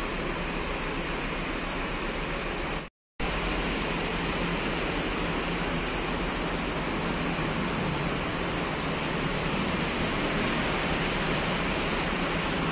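A steady, even rushing noise with no pitch or rhythm, cutting out completely for a moment about three seconds in.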